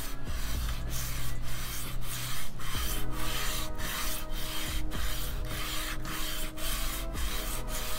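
Wooden smooth plane's sole being lapped on 220-grit sandpaper: wood scraping over the abrasive in quick back-and-forth strokes, about two a second, flattening the sole a little at a time.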